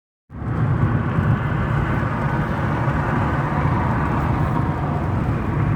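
Steady road and engine rumble of a car heard from inside the cabin while driving, starting a moment in and holding level.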